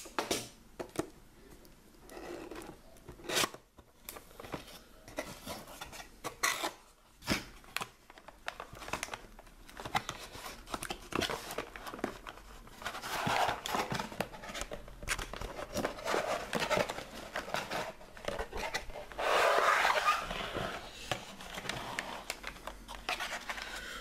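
A box cutter cutting open a cardboard box, with scattered clicks and knocks of handling, then cardboard and paper rustling and tearing as the box is opened. The rustling is loudest about two-thirds of the way in.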